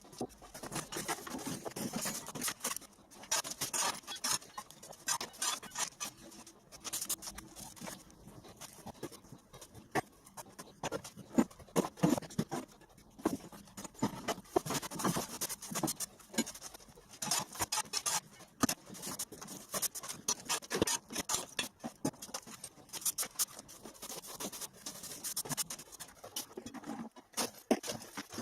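Rubble and dust being shovelled, scraped and swept across a floor: a busy, irregular run of gritty scratching and scraping with scattered knocks.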